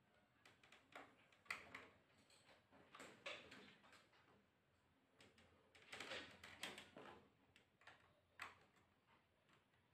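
Near silence: room tone with scattered faint clicks and knocks, a few of them grouped about six to seven seconds in.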